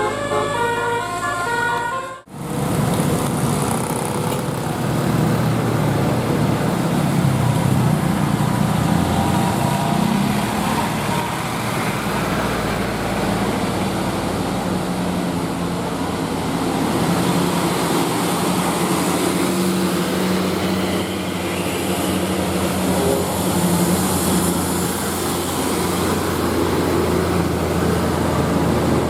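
A bus's multi-tone telolet horn playing a short melody of stepped notes for about two seconds, then, after a sudden break, a steady bus engine rumble and road noise.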